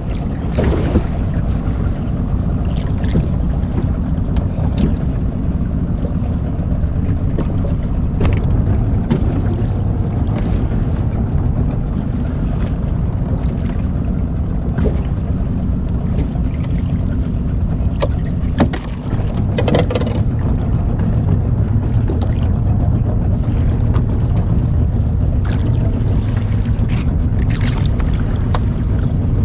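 Steady low rumble of a small fishing boat running, with now and then a sharp knock.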